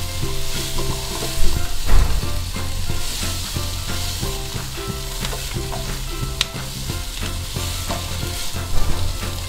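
Pork ribs, fried garlic and red pepper sizzling in a nonstick wok over low heat while being tossed with a spatula, which scrapes the pan and knocks against it a few times.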